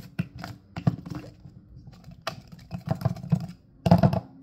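Plastic shaker cup being opened and handled: a string of plastic clicks and clacks from the flip cap and lid. The loudest cluster comes about four seconds in, as the red inner strainer is lifted out.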